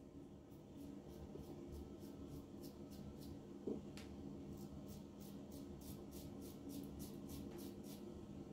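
Gillette New Short Comb safety razor with a Gillette Nacet blade scraping through lathered stubble. It makes faint, short, quick strokes, about four a second.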